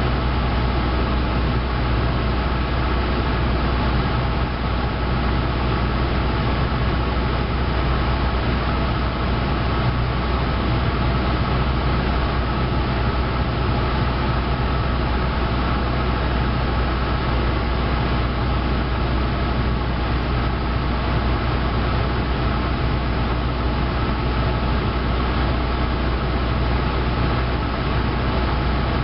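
Cessna 172's piston engine and propeller running steadily in cruise flight, heard inside the cabin as a constant low hum with no change in pitch.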